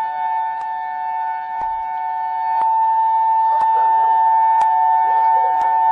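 Tsunami warning siren sounding a steady two-note tone without rising or falling, with a sharp tick about once a second.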